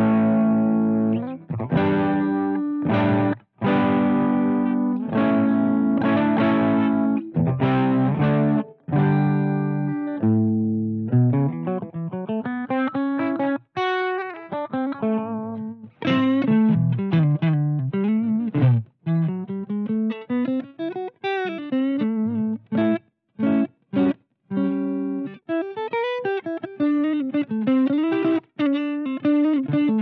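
Electric guitar played through a Twinote Boogie Distortion pedal, giving a heavily distorted tone. Held chords with short breaks come first, then, about a third of the way in, single-note lead lines with string bends and vibrato.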